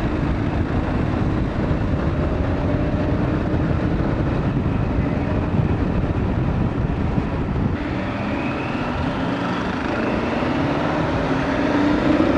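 Motorcycle engine running under way with steady wind and road rumble on the microphone. Near the end the engine note rises as the bike accelerates.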